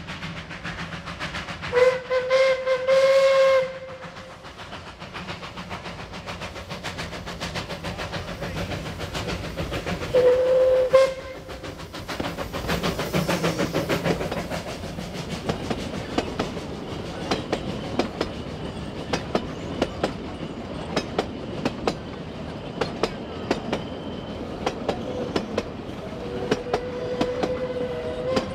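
Narrow-gauge steam train passing close by: its whistle sounds a long blast and then a shorter one, the locomotive goes past with a rush of steam and exhaust, and then the carriages click steadily over the rail joints. A fainter tone at the whistle's pitch comes in near the end.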